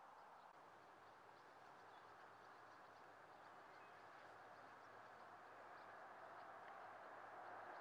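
Near silence: faint, steady outdoor ambience, slowly growing a little louder, with a few faint high chirps.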